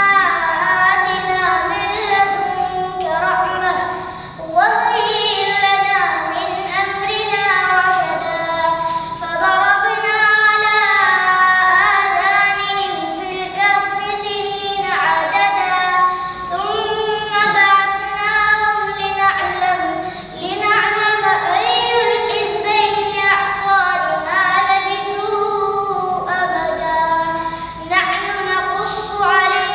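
A boy reciting the Quran in Arabic, chanting in long melodic phrases with held, ornamented notes and brief pauses between phrases, about 4 s and 20 s in.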